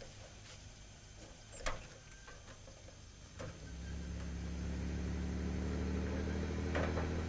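A sharp click about a second and a half in. Then, about three and a half seconds in, a motorcycle engine starts and runs steadily, growing louder as it pulls away.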